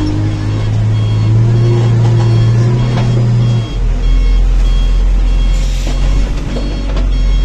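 JCB backhoe loader's diesel engine running under load, heard from inside the cab as the loader pushes earth; its note drops lower about halfway through. A short high beep repeats about once a second over it.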